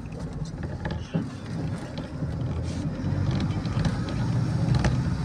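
Bus engine and road rumble heard from inside the passenger cabin while driving, with scattered rattles and a sharp knock about a second in; the rumble gets louder about three seconds in.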